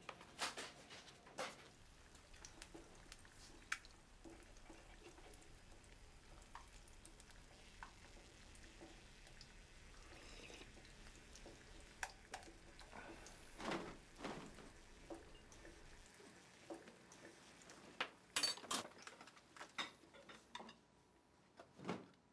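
Faint scattered clicks and knocks of small household objects being handled in a quiet room, with a cluster of sharper knocks near the end.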